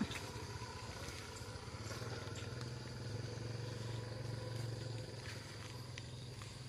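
Low, steady hum of a small engine running, with a fine even pulsing to it.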